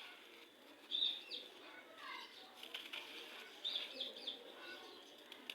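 Gritty red sand crumbling, in a few short crunchy bursts with grainy crackle between them; the loudest comes about a second in, and another cluster follows near the end.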